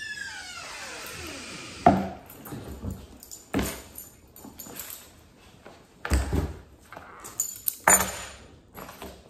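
A falling musical phrase fades out over the first two seconds. Then come a few sharp knocks and dull thumps as bags are set down on a wooden tabletop, with a sharp clack near the end as a ring of keys lands on the table.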